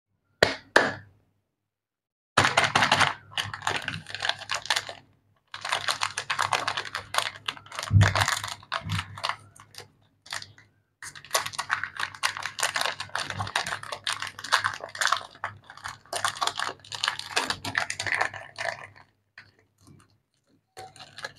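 Chocolate bar wrappers, plastic and foil, being crinkled and torn open by hand: dense crackling in bursts with short pauses between them.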